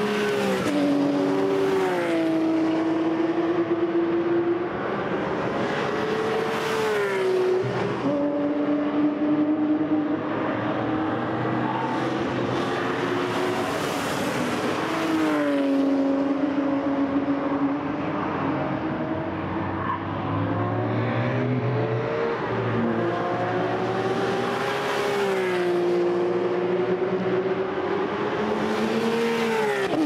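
Sports cars lapping a race circuit at high revs. Engine notes climb and step down at each gear change, and cars pass close every few seconds.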